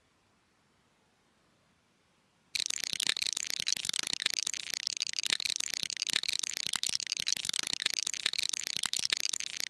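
Plastic LEGO bricks rattling and clicking rapidly and continuously, starting suddenly about two and a half seconds in and cutting off abruptly at the end.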